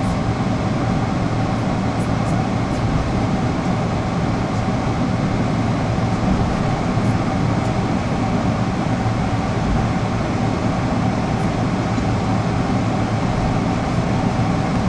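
Steady cabin noise inside a Boeing 777-300ER taxiing on the ground: a low rumble and airy hiss from the engines at taxi power, the cabin air and the wheels rolling, with a faint steady hum.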